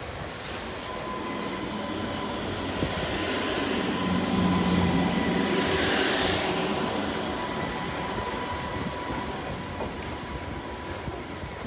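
A Class 230 diesel-electric multiple unit passing close by, its running noise swelling to a peak about six seconds in as it goes past and then fading as it pulls away. A thin, steady high-pitched whine runs underneath.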